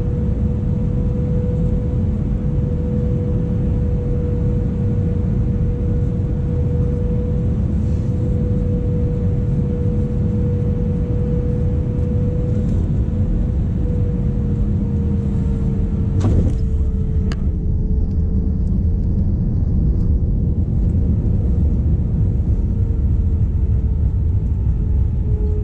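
Cabin noise of an Airbus A318 airliner landing: the steady rumble of its jet engines and airflow with a steady hum. About sixteen seconds in there is a sharp thump as the main wheels touch down, with a smaller knock a second later, and the rumble then grows slightly louder as the aircraft rolls out on the runway.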